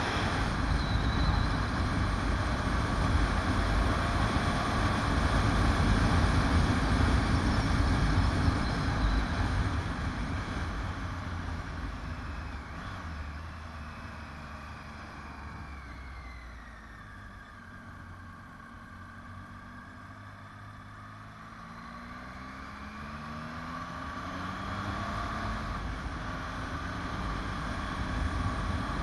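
Motorcycle on the move, heard mostly as wind rushing over the camera microphone at speed. The rush fades as the bike slows for a hairpin bend about halfway in, then the engine note rises as it accelerates away near the end.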